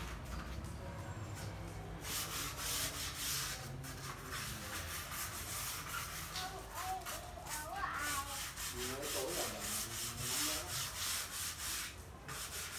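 Wooden flooring plank being rubbed by hand with a sponge pad in quick back-and-forth strokes, about three strokes a second, starting about two seconds in.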